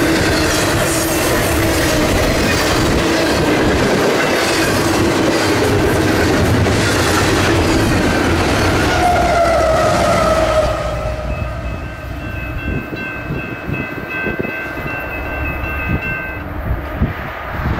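Double-stack intermodal freight cars rolling past at speed, their wheels clattering over the rails, with a short squeal falling in pitch just before the last car clears. The rail noise then drops away suddenly, and the grade-crossing bell rings on for about five seconds before it stops.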